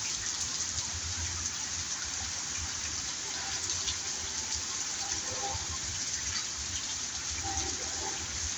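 Steady rain falling, an even hiss of water with a fluctuating low rumble underneath.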